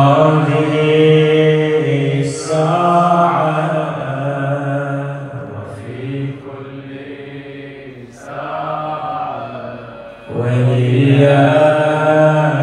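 A man's voice chanting Islamic devotional recitation in long, drawn-out melodic phrases, with short breaks between phrases.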